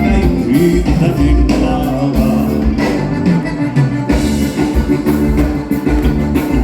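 Live gaúcho band music in the bugio dance rhythm, with held instrument notes over a steady bass-and-drum pulse.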